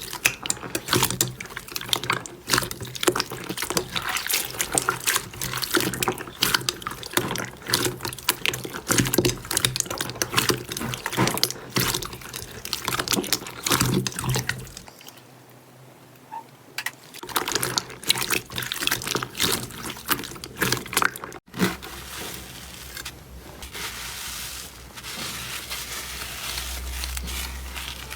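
Wet, sticky slime being squished and pressed by hand: a dense run of small wet clicks and pops. It pauses briefly about halfway, then carries on softer and more even.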